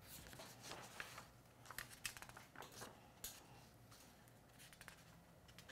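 Faint paper rustles and soft taps as a picture book is opened and its pages are turned.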